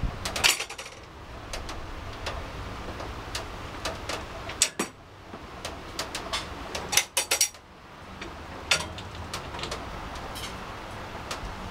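Irregular light metallic taps and clinks, a small hand-held object knocking against a window's metal grille and glass, loudest in a cluster a little past the middle. Behind them runs the steady hiss of heavy rain.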